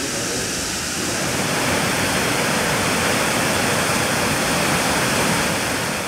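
Waterfall of a mountain river pouring over stepped rock ledges: a steady, loud rush of falling water, growing a little louder about a second in.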